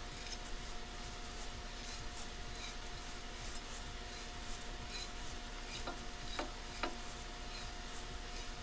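Hand tap cutting 10-32 threads dry, without cutting fluid, into an AR-15 lower receiver, turned by a tap wrench: a faint scraping with small clicks, and a few sharper clicks about six to seven seconds in.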